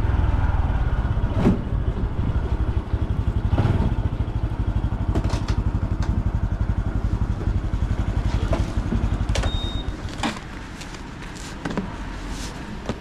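Honda Super Cub C125's 125 cc single-cylinder engine and exhaust running, its level falling over the last few seconds as the bike slows, with scattered sharp clicks.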